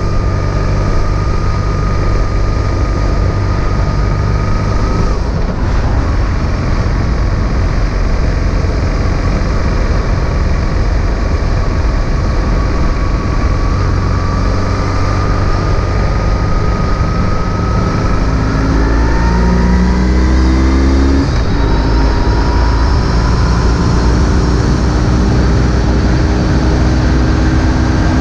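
BMW R1150 GS boxer twin engine running at road speed over steady wind and road noise. Its pitch drops with a gear change about five seconds in, then rises under acceleration and drops again with another gear change about twenty-one seconds in.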